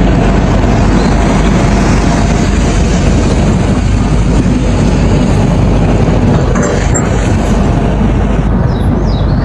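Excavator's diesel engine running loud and steady.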